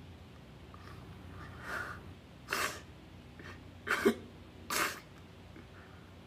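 A man sobbing: four short, sharp, breathy bursts about a second apart, between stretches of faint room noise.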